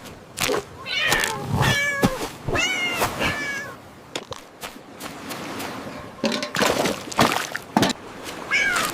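A cat meowing twice, two long curving calls in the first few seconds, followed later by a few sharp clicks or taps.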